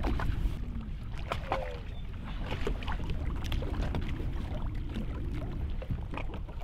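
Steady low rumble of wind and water around a bass boat, with scattered small knocks and clicks.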